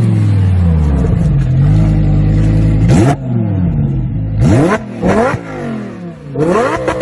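Lamborghini Huracán Spyder's V10 engine slowing, its revs falling to a steady low speed. It is then blipped sharply four times, the last few revs mixed with exhaust crackle.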